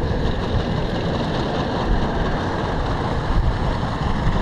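Steady low rumbling noise of wind buffeting the camera's microphone.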